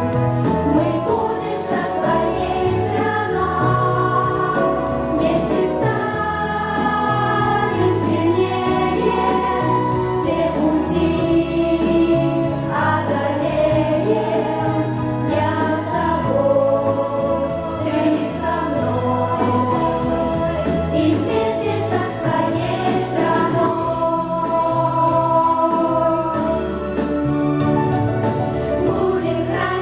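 A vocal pop ensemble singing together over a backing track with a steady bass beat.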